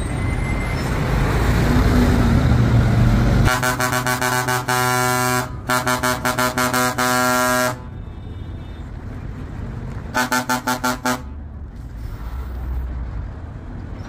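Daewoo coach's horn sounding in rapid strings of quick toots at one steady pitch, starting about three and a half seconds in and ending with a longer held blast. A second short run of quick toots comes a couple of seconds later. Before the horn there is a loud rumble that builds.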